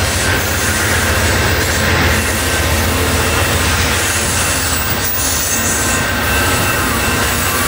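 Amtrak Superliner bilevel passenger cars rolling past close by: a steady, loud rumble of steel wheels on rail with thin, high wheel squeal running through it.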